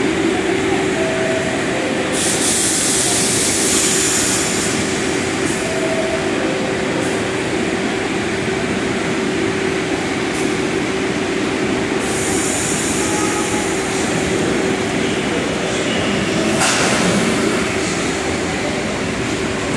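Bombardier R62A subway train standing at the platform with a steady hum and two long hisses of air, then starting to pull out near the end, the running noise swelling as it moves off.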